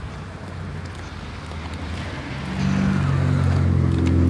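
A car driving toward the listener at close range, its engine hum rising in loudness from about halfway in and loudest near the end.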